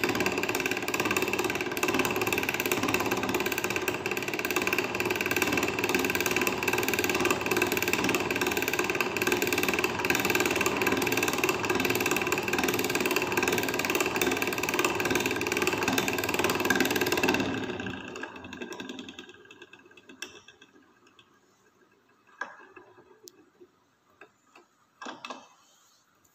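Hand-cranked laboratory centrifuge whirring steadily as its handle is turned and the tube head spins, separating a precipitate. The whirring winds down over a couple of seconds about two-thirds of the way in, followed by a few faint clicks.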